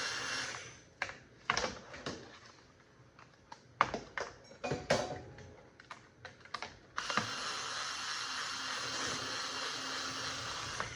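Scattered sharp clicks and knocks of a plastic box fan and its screws being handled during disassembly. A steady hiss sits under the start and returns for the last four seconds.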